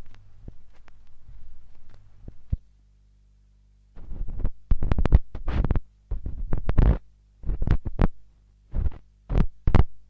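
Closing seconds of an electronic dance track played from a vinyl record: a low hum with faint clicks, a short drop-out, then a run of irregular loud noisy stabs about four seconds in.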